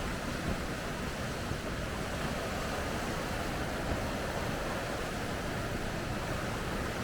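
Rain-swollen mountain stream rushing over rocks: a steady, even roar of water.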